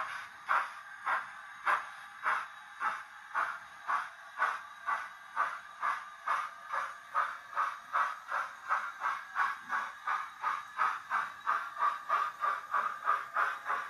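Sound-fitted OO-gauge Hornby Black Five model steam locomotive playing digital exhaust chuffs, the beats quickening from under two a second to about three a second as it runs.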